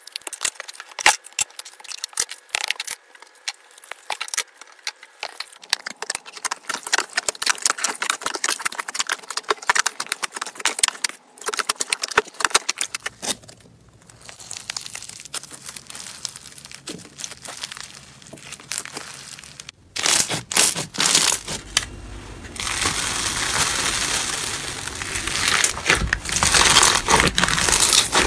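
Hands squishing and kneading slime: dense, sticky clicking and popping that changes texture several times, with foam-bead slime crackling and crunching as it is squeezed, densest and loudest near the end.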